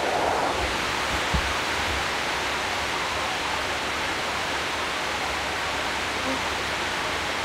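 Steady hiss of rain falling, with a soft thump about a second and a half in.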